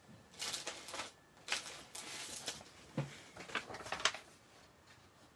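Paper rustling in several short bursts as sheets are shuffled and a printed flyer is picked up and handled.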